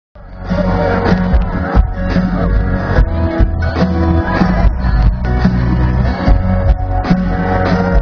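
Live country band playing, with acoustic guitar, steel guitar and drums, picked up loudly from the audience.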